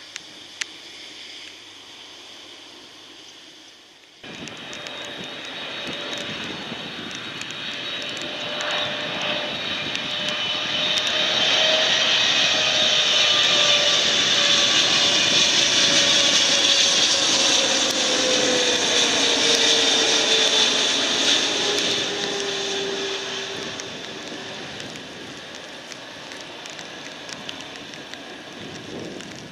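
Faint rain ambience, then, after about four seconds, the jet engines of a Boeing 777 airliner on final approach flying low past. The engine noise builds to a loud rush with a high whine, and a tone falls in pitch as the plane goes by, then fades away.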